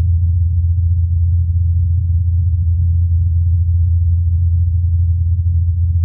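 Steady low hum of the Ingenuity Mars helicopter's spinning rotor blades, recorded by the Perseverance rover's microphone on Mars, with fainter overtones above it. Everything higher is cut away, as in NASA's filtered and boosted version of the recording.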